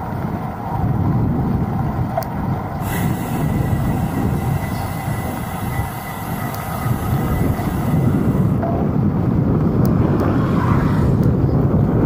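Wind rumbling on the microphone and road noise from riding a bike through city traffic. A steady high whine with extra hiss joins in about three seconds in and drops away near nine seconds.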